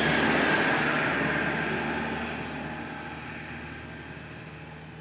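A truck passing and pulling away, its engine and road noise fading steadily over a few seconds.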